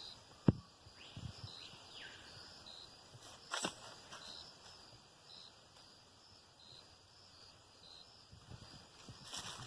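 Quiet outdoor ambience with an insect chirping high and short about once a second, a sharp knock about half a second in, and brief rustles of handling noise around three and a half seconds and near the end.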